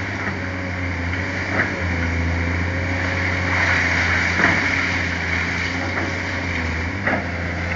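Caterpillar excavator's diesel engine running steadily as its demolition grab breaks up a brick and concrete building. Three sharp cracks of breaking concrete and falling rubble come a few seconds apart, with a busier clatter of debris around the middle.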